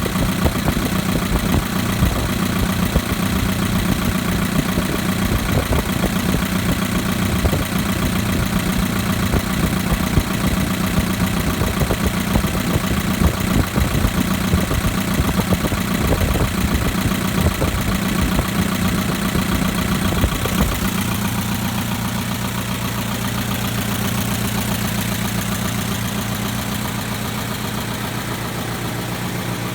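2011 Chevrolet Equinox's 2.4-litre four-cylinder engine idling with the ticking noise it is being sold with. About two-thirds of the way through, the deep rumble drops away and the sound becomes smoother and a little quieter.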